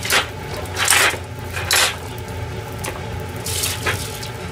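Sandwiches frying in butter in two frying pans on a gas stove, giving a few short hissing spatters over a steady low hum.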